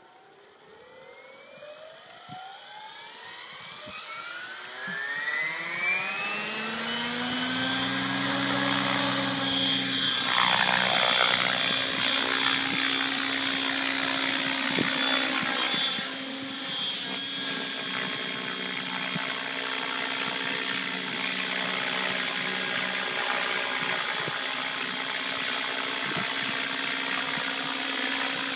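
Align T-Rex 700 electric RC helicopter spooling up: the brushless motor and rotor whine rises in pitch over about eight seconds, then holds steady at the head speed set by its Castle speed controller as it lifts off and flies. The loudness dips briefly about sixteen seconds in.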